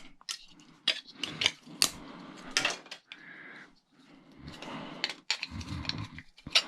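Hand tools clinking and knocking on metal parts at irregular intervals while fan blades are worked off a small appliance motor being stripped for scrap.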